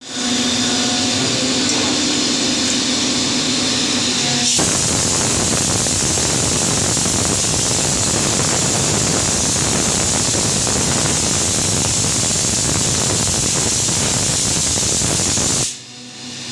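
CNC vertical milling machine cutting a metal casting mould, with a steady machining tone over a hiss. About four and a half seconds in, a hand-held blow gun starts a loud, steady hiss that drowns it out, then cuts off suddenly shortly before the end.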